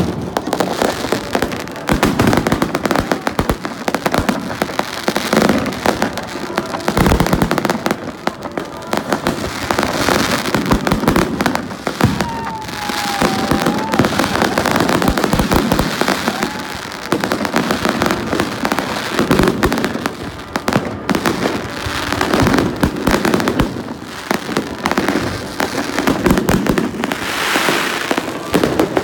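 Fireworks going off continuously overhead: a dense barrage of bangs, pops and crackling. A brief whistle, dipping then rising in pitch, sounds about halfway through.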